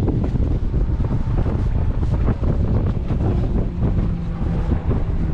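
Wind buffeting the microphone on a boat at sea, a loud steady rumble. A boat motor's low steady hum comes in faintly about four seconds in.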